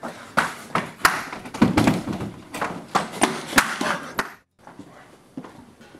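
Thuds, knocks and shoe scuffs of a man tumbling and scrambling on a hard hallway floor, about three or four a second, cutting off suddenly about four seconds in.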